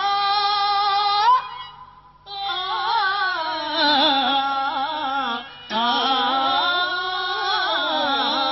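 Telugu burrakatha singing: a voice sings a sung passage in a Carnatic-style melody, holding and bending long notes, with a short pause about a second and a half in.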